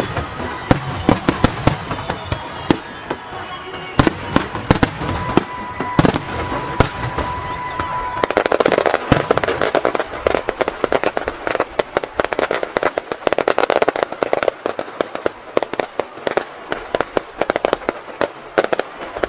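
Fireworks display: aerial shells bursting with sharp bangs, one after another. A steady whistle sounds for a few seconds near the middle. From about eight seconds in, a dense rapid crackling of many small pops sets in among the bangs.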